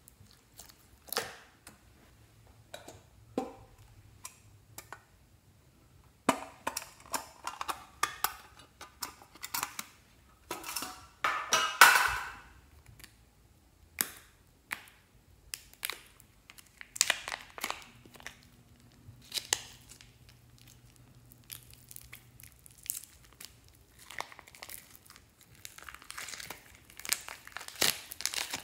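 Hands squishing and stretching slime, with irregular sticky clicks and pops, and a plastic zip-lock bag crinkling as slime is squeezed out of it, the crinkling loudest near the middle.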